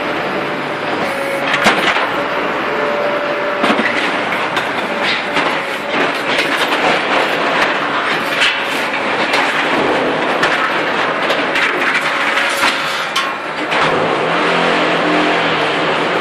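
Concrete paving-block machine running: a steady loud mechanical din with a hum and repeated metal knocks and clatter. Near the end the knocks thin out and a steadier motor hum comes forward.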